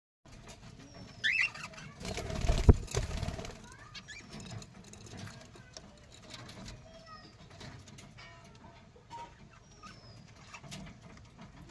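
Budgerigars chirping, short high chirps that slide up and down, scattered throughout. About two and a half seconds in comes a loud rustle with a sharp thump, the loudest sound.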